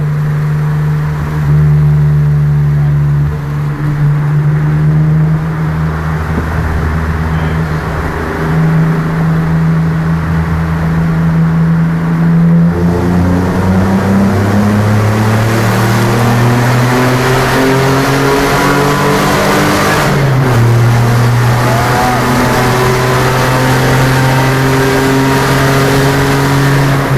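Alfa Romeo 155's 3.0 V6 engine running loud through a broken exhaust that ends in an open pipe, with the car under way. The engine holds a steady pitch, then climbs after a change about twelve seconds in, drops at a gear change about twenty seconds in and climbs again.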